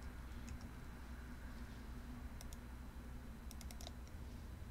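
Faint computer keyboard keystrokes and mouse clicks: a few scattered clicks, then a quick run of several clicks near the end, over a low steady hum.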